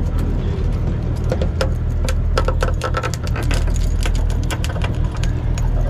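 Boat engine running with a steady low drone, overlaid by rapid, irregular clicks and taps.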